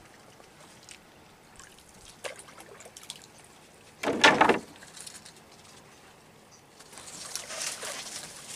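Water trickling and sloshing as a crab trap is set into the shallows beside nipa palm fronds from a small boat, with a brief loud splash about four seconds in and a growing swish of disturbed water near the end.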